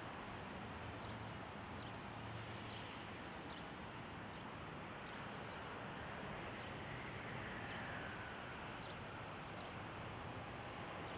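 Faint, steady airport background: the distant rumble and hiss of a twin-engine business jet taxiing, with a faint whine that falls in pitch about seven seconds in. A few tiny high chirps, like distant birds, come through.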